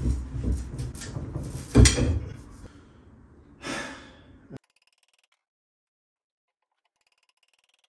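Steel pry bar working at a stuck engine-mount bolt set in wooden bearers, with a loud knock about two seconds in and heavy straining breaths and a sigh. The sound cuts off abruptly to silence about four and a half seconds in.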